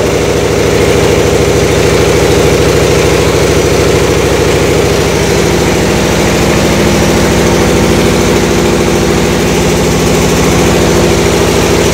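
Machinery running with a steady hum and a fast even pulse, over water gushing freely out of a compressor's water-jacket outlet and splashing onto the floor. The jacket's scale blockage has been cleared, so the water flows fast.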